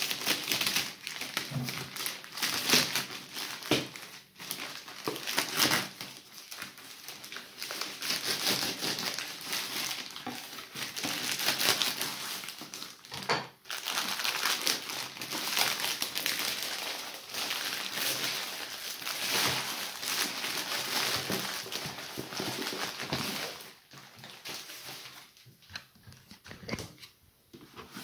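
Grey plastic courier mailer being cut open with a knife and then torn away by hand, with irregular crinkling and rustling of the plastic. The rustling dies down near the end as the white cardboard box inside is freed.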